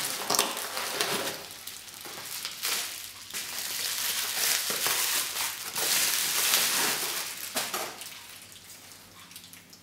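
Bubble wrap and plastic packaging crinkling and rustling as a boxed item is lifted out and unwrapped by hand. The crackling dies down near the end.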